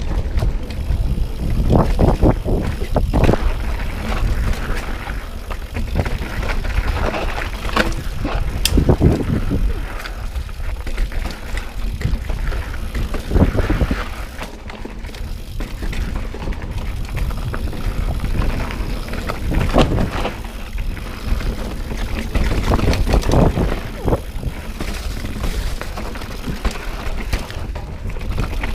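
Mountain bike riding fast down a dirt forest singletrack, tyres rolling over the trail with frequent knocks and rattles from the bike over bumps and roots. Wind rumbles on the microphone throughout.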